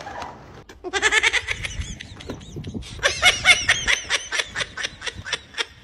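A person laughing hard: a high-pitched squeal about a second in, then a quick run of ha-ha-ha, about five a second.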